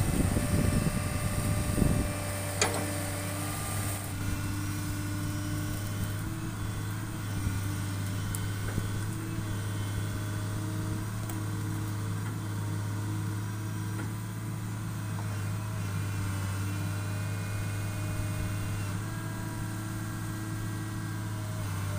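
Heavy diesel engine running steadily at idle, after a louder, rougher rumble for the first two seconds; a single sharp click comes about three seconds in.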